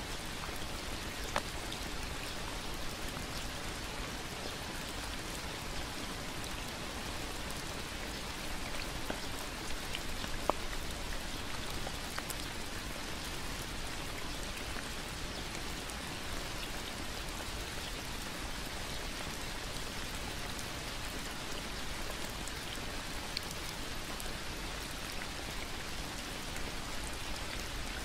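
Steady rain falling on leaves and a wet wooden footbridge, with a few louder single drop ticks, one about a second in and another about ten seconds in.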